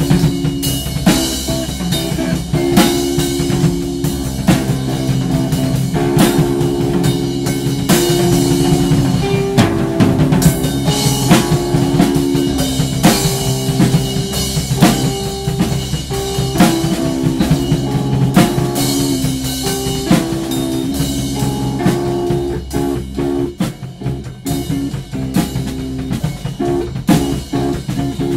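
Instrumental psychedelic rock jam: a drum kit playing busy beats under guitar notes that are held and change pitch every second or so. The drumming thins out a little near the end.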